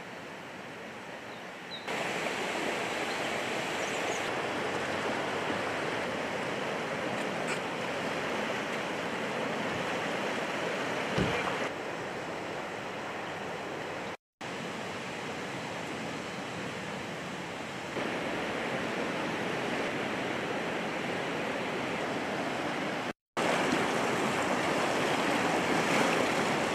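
Steady rush of a swollen river in flood, its fast water running high and breaking white, heard across several shots. The sound is broken twice by a moment's silence at the cuts.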